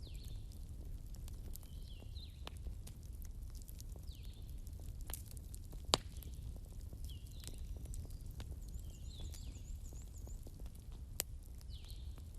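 Bonfire of burning wood crackling steadily over a low rumble, with frequent small ticks and two sharper pops, one about halfway through and one near the end.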